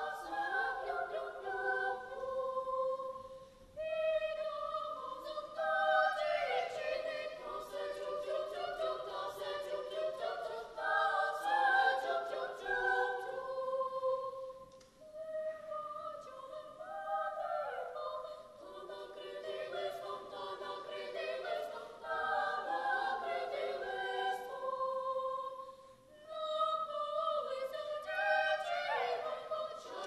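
Children's choir singing a cappella in high treble voices, in phrases with short breaks about 4, 15 and 26 seconds in.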